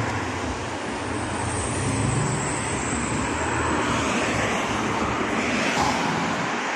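Road traffic on a multi-lane road: a steady wash of tyre and engine noise from cars passing close by.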